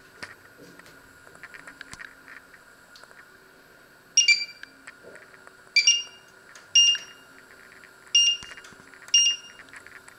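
Touch controls of a glass-top electric hob beeping as they are pressed to set the power level: five short electronic beeps, spaced about a second apart.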